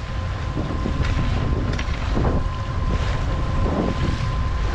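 Wind buffeting the microphone aboard a sailing yacht under way, over the hiss of water rushing past the hull, with a few short swells of splash. A faint steady high tone runs underneath.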